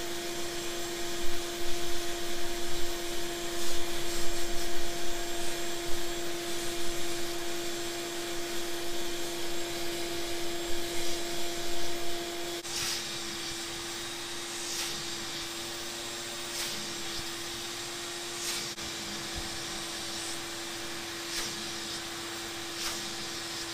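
Vacuum cleaner running with a steady motor whine, its crevice nozzle scraping and sucking unevenly across a dusty foam air filter pad. About halfway through, the sound turns steadier and a little quieter as the nozzle works over the finned heat-exchange core of an energy recovery ventilator.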